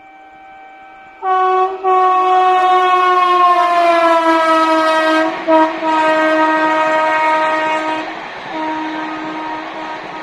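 A train horn sounds long and loud from about a second in, its pitch dropping as the locomotive passes, with brief breaks in the middle. After that comes the steady rumble and clatter of an LHB express's coaches running by at speed.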